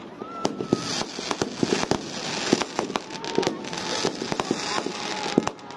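Fireworks display: a rapid, irregular string of bangs and crackles from bursting aerial shells, over a hiss that swells about a second in and fades near the end.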